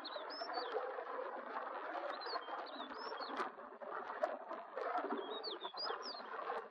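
Stonechat singing three short phrases of quick, scratchy, rising and falling high notes: one at the start, one a couple of seconds in, one near the end. A steady rushing noise runs underneath.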